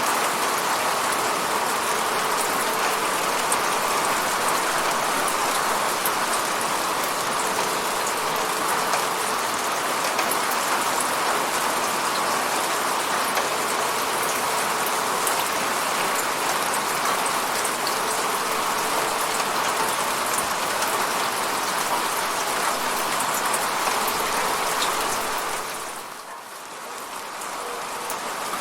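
Steady rain falling on a window, a dense even hiss of drops striking the glass. Near the end it fades for about a second, then comes back.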